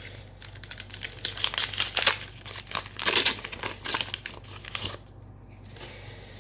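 Trading-card booster pack wrapper crinkling and tearing open: a dense run of crackling that stops about five seconds in.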